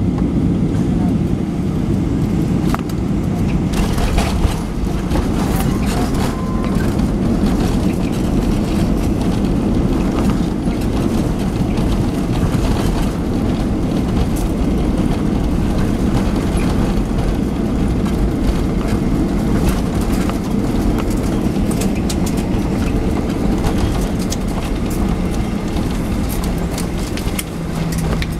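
Boeing 737-900ER heard from inside the cabin during landing: a loud, steady rumble of the CFM56 jet engines, airflow and the wheels on the runway, with scattered clicks and rattles from the cabin fittings.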